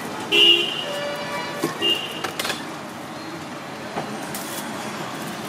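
Street traffic running in the background, with a short vehicle horn toot about half a second in and a brief second toot near two seconds.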